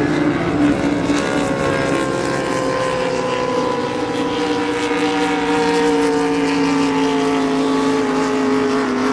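Supercharged displacement race-boat engines running flat out as the boats go by at racing speed. The loud, steady engine note falls slowly in pitch.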